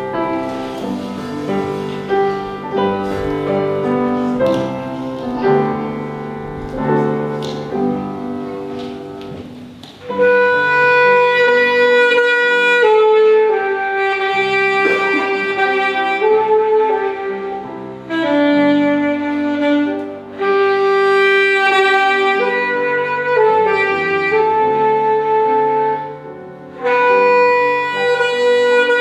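Saxophone playing a slow melody over piano accompaniment. The piano plays alone for about the first ten seconds, then the saxophone comes in with long held notes, pausing briefly a few times.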